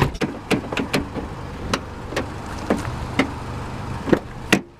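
A car running just after starting: a low steady hum with many irregular sharp clicks and knocks over it.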